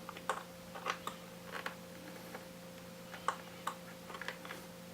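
Scattered small clicks and taps of hands handling small hardware parts (screws, a drive bracket) during work on a hard-drive mount, about ten in a few seconds, over a steady faint electrical hum.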